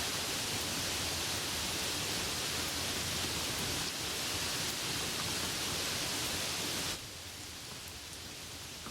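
Steady rainfall, a dense even hiss. About seven seconds in it drops suddenly to a quieter, softer rain.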